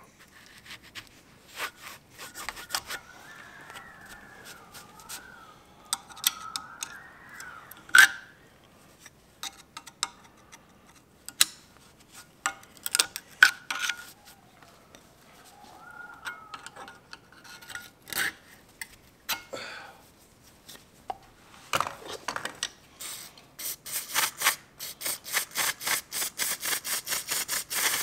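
A rag on a screwdriver scraping and rubbing inside a rusty tractor tie rod, with scattered clicks and two stretches of wavering squeak. Near the end an aerosol can of brake cleaner is sprayed in rapid short hissing bursts, about five a second.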